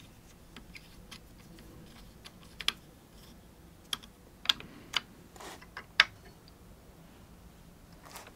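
Light, scattered clicks and taps of a small hex driver and tiny M3 set screws against an aluminium T-track as the screws are turned in by hand, loudest about six seconds in.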